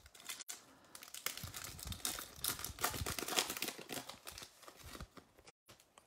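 A trading card pack's wrapper being torn open and crinkled by hand, a dense run of crackling and tearing that is loudest in the middle and dies down near the end.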